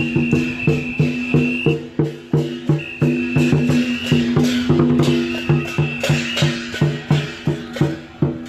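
Lion dance percussion playing a fast, steady beat: drum strikes several times a second over ringing gong and cymbals. A high steady tone is held three times, for about two seconds each.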